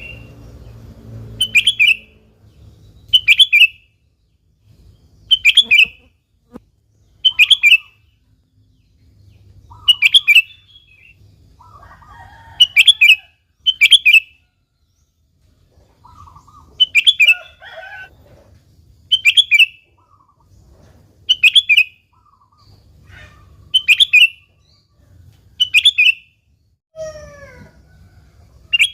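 Sooty-headed bulbul (kutilang) calling over and over, with short, loud, bubbly phrases about every two seconds and fainter calls between them.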